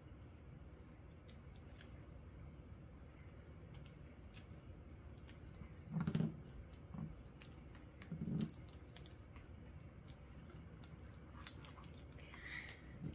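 Clear plastic photocard sleeves and rigid plastic toploaders being handled and a card slid in: scattered light clicks and crinkles of thin plastic, with a few brief louder low sounds about six and eight seconds in.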